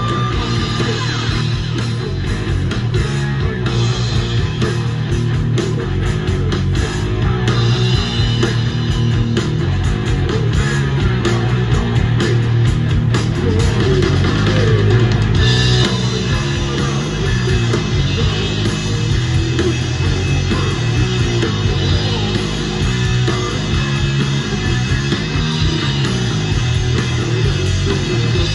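Rough mix of a heavy rock song, electric guitar and drums, playing back from a Tascam MSR-16 sixteen-track analog tape recorder, heard through the room's monitor speakers on a phone.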